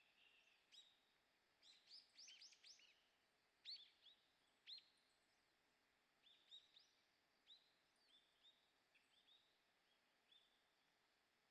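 Small birds calling with short, thin, high notes: a quick run of notes early on, two louder single notes a second apart, then a looser series of softer notes, over faint background hiss.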